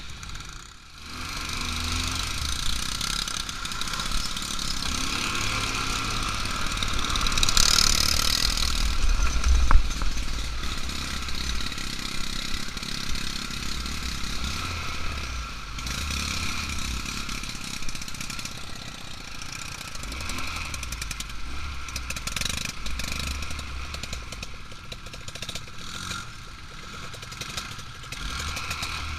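ATV engine running as the quad is ridden, a steady drone that swells louder for a couple of seconds about eight seconds in.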